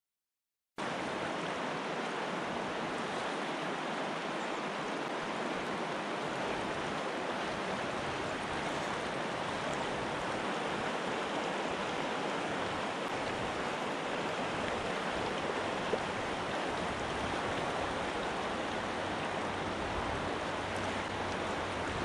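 Mountain stream running high with snowmelt: a steady rush of water that starts abruptly about a second in, with one faint tick about sixteen seconds in.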